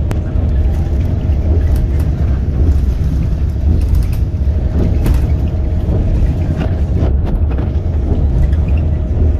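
Steady low road rumble of a vehicle travelling at motorway speed, heard from inside the cabin, with a faint steady whine over it.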